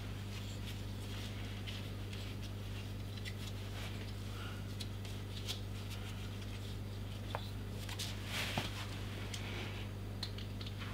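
Faint rustling and a few light clicks from a leather welding apron's straps being handled and adjusted, over a steady low hum.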